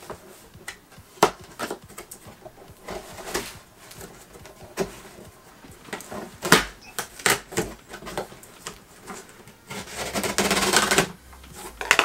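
Handling of a large cardboard box: scattered knocks and clicks, then a longer rough, scraping noise of about a second, roughly ten seconds in.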